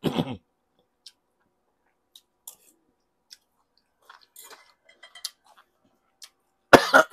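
A person chewing a mouthful of tender stewed pork, with faint lip smacks and small spoon and fork clicks, picked up close on a clip-on microphone. Near the end this breaks into a sudden loud cough.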